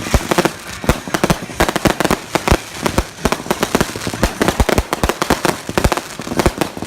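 Fireworks and firecrackers going off: many sharp bangs and cracks in rapid, irregular succession, several a second, with no let-up.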